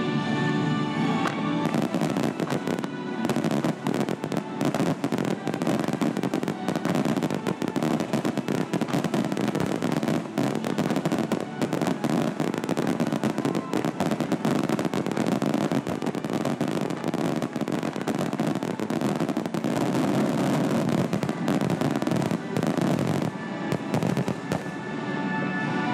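Aerial fireworks barrage: a rapid, continuous run of shell bursts and crackling, many shells going off close together. Music plays underneath.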